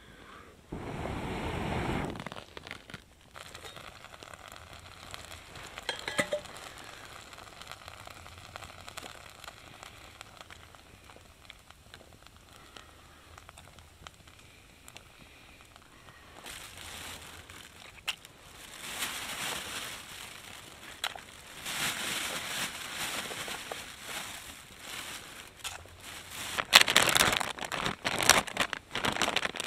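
Small wood fire crackling under a cooking pot, with rustling and clinking as food is handled and added. Near the end, loud crinkling of a plastic bag being handled.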